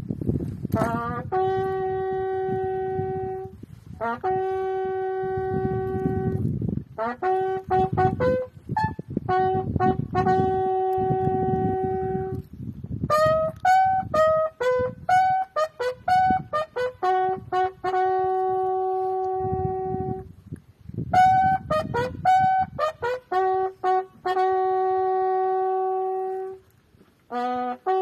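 A bugle plays a slow call of long held notes broken by quick runs of shorter, higher notes, sounded as the military salute at a soldier's graveside burial.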